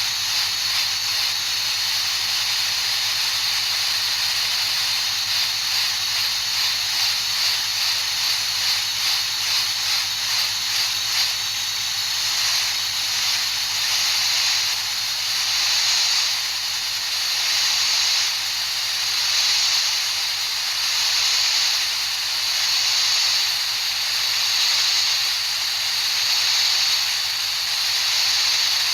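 High-pitched steady hiss of tinnitus-masking noise, like steam. Through the first ten seconds or so it pulses quickly, about one and a half beats a second. It then swells and fades in slower waves, about one every one and a half to two seconds.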